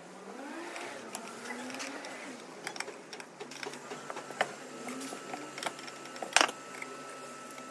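Hand tools on a car alternator being reassembled: a screwdriver scraping and clicking against the alternator's metal housing and parts, with a sharp metallic knock about six seconds in.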